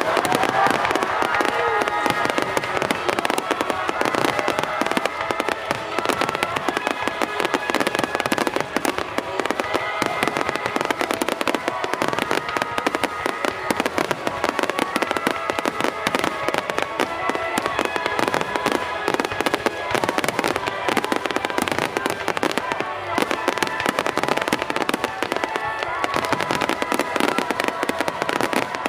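Fireworks display: continuous dense crackling and popping from bursting shells, with music playing along and a rising whistle near the start.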